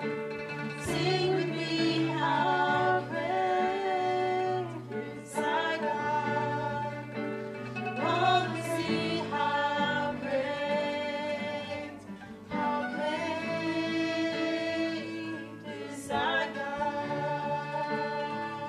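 Live worship song: a woman sings the lead into a microphone, accompanied by a digital piano and a small plucked string instrument.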